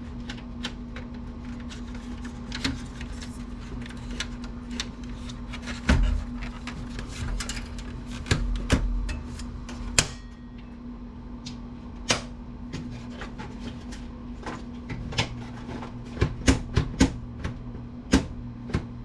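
Desktop computer case being taken apart by hand: many small clicks and knocks of plastic and sheet-metal parts, with a few heavier thumps about six and nine seconds in and a quicker run of clicks near the end, over a steady low hum.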